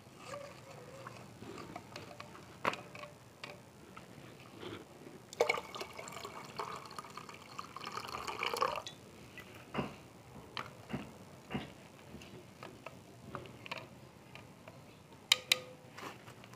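Distilled water poured into a glass beaker of blue nitric-acid solution, a splashing pour lasting about three and a half seconds in the middle, diluting it before salt is added. Around it, sharp clinks of the stirring rod against the glass, two of them close together near the end.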